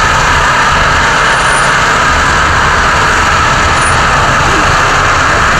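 Rear wheels of a Lada 2107 spinning on ice as the car fails to climb a slight slope, with its engine running underneath: a steady, loud whine and hiss of tyres slipping for lack of grip on the iced road.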